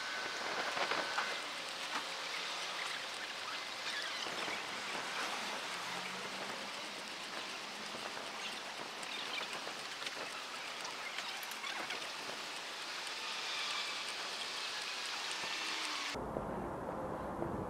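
Street sound picked up by an action camera's built-in microphone while walking: a steady crackling hiss of rustle and handling noise with scattered small clicks. Just before the end it turns abruptly muffled and boomy.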